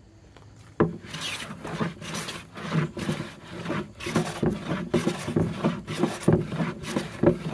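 No. 5 jack hand plane shaving wood in a quick run of repeated strokes, starting with a sharp bite about a second in, cutting across and against the grain.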